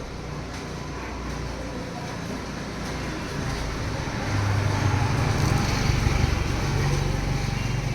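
Low rumble of a vehicle over steady background noise, growing louder about four seconds in.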